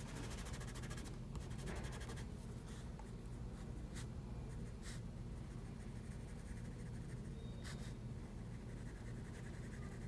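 Graphite pencil shading on paper: steady, soft scratching of quick back-and-forth strokes, with a few faint ticks.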